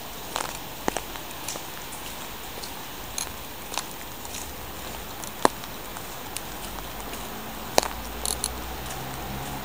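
Light rain falling: a steady soft hiss with scattered, irregular sharp taps of drops landing close to the microphone.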